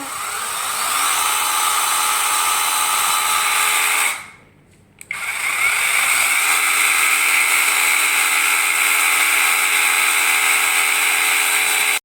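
Battery-powered mini chainsaw running with no load on a freshly fitted and tensioned chain: the electric motor's whine rises as it spins up, cuts off about four seconds in, then starts again a second later and runs steadily.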